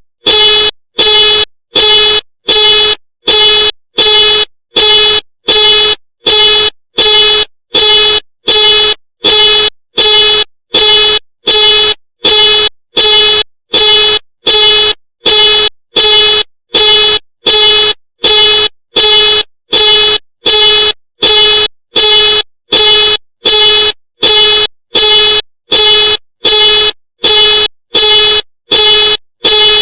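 Ford car alarm sounding: the car's horn honks on and off in a steady, even rhythm, about one and a half loud honks a second, each on one steady pitch.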